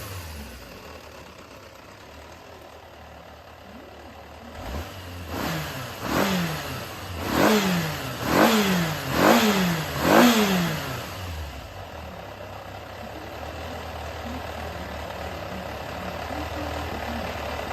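Yamaha XJR400 air-cooled inline-four engine idling, then blipped about half a dozen times in quick succession, each rev falling straight back, before settling into a steady idle again. The seller describes it as running well with no abnormal noise.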